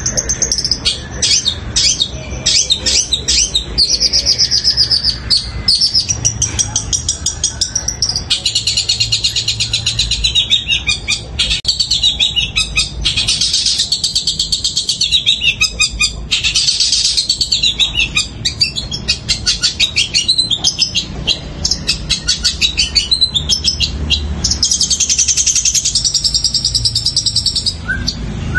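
Long-tailed shrike (cendet) singing a long, loud, rapid chattering song of high repeated notes, mixed with mimicked house sparrow chirps.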